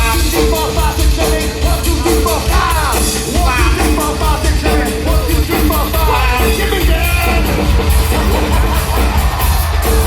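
Live rock band playing loudly through a PA, with heavy bass, a sustained held note, and vocals over the top.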